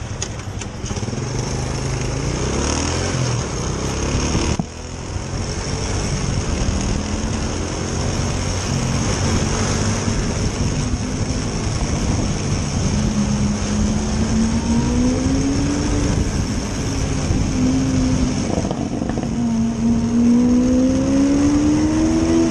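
Honda scooter's small engine running under way, with wind rushing over the microphone; in the second half the engine note rises in pitch several times, climbing longest near the end as it accelerates.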